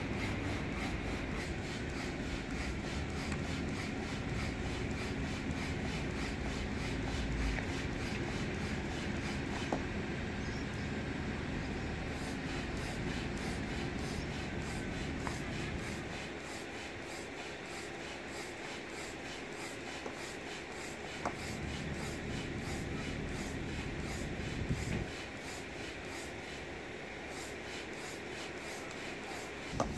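Hand pump inflating an inflatable stand-up paddleboard: the rhythmic rasp of air forced through the pump and hose on each stroke, steadily repeated.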